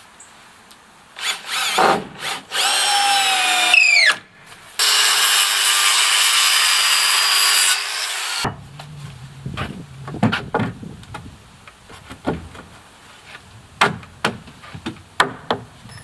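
Power tool working wood. A short run whose pitch drops as the motor winds down is followed by about three seconds of steady running through the wood, then scattered knocks.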